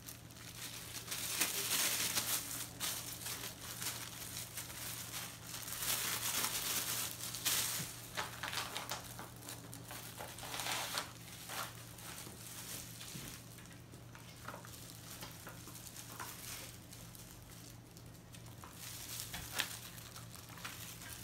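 Thin clear plastic crinkling and rustling in irregular bursts, loudest over the first few seconds and again about six to seven seconds in, as disposable food-prep gloves are handled and pulled on, over a faint steady low hum.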